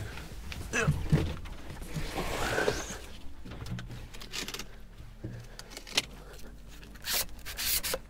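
Rubbing, scraping and light knocks of a landing net and its handle being pulled out and handled over gear in a boat, with louder scrapes about two seconds in and again near the end.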